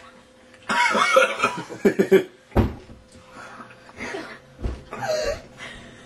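A man coughing in several separate fits while trying to swallow a mouthful of table salt.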